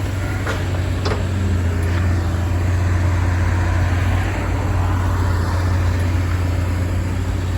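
Excavator diesel engine running steadily, swelling louder in the middle as the machine works, with a couple of sharp metallic clicks in the first second or so.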